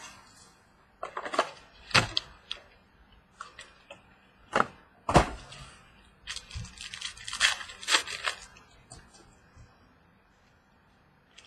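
A sealed box of trading cards being opened and unpacked by hand: irregular sharp clicks and short rustles of cardboard and wrapper, with a busier stretch of rustling past the middle.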